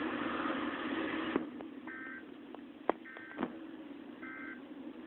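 Emergency Alert System end-of-message data tones: three short warbling two-tone bursts about a second apart, after a steady hiss that cuts off about a second and a half in.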